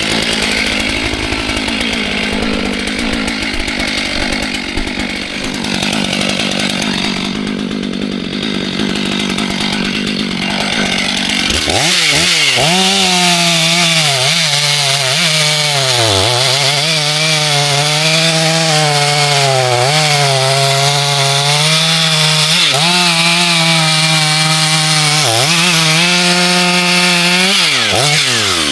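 Chainsaws cutting wood. About twelve seconds in the sound changes to a louder saw at high revs, its pitch sagging again and again as the chain bites into the wood and recovering between cuts.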